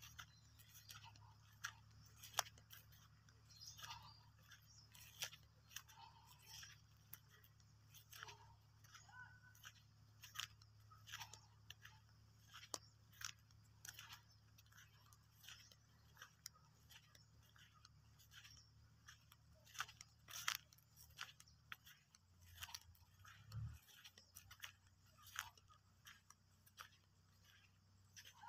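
Faint footsteps crunching on dry, crusted field soil and dead cane leaves: irregular short crackles and clicks, about one or two a second, over a faint low hum.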